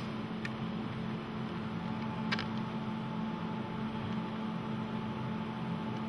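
Steady low electrical and fan hum with an even hiss, and two faint clicks about half a second and two and a half seconds in.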